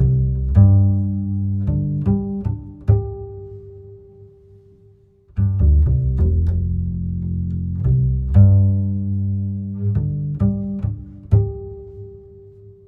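Background music: plucked and bowed low strings (double bass and cello) playing a light pizzicato tune in two phrases, the second starting about five seconds in, each fading on a held note.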